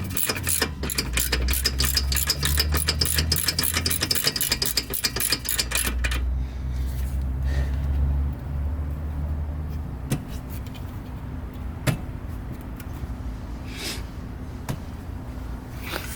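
Socket ratchet clicking rapidly and evenly as a brake caliper bolt is turned, for about six seconds, then a few single clicks and taps. A steady low rumble runs underneath.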